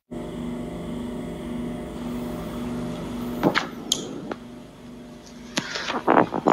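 A steady machine hum, then several sharp knocks and rustles from a smartphone being handled and moved about, starting about three and a half seconds in.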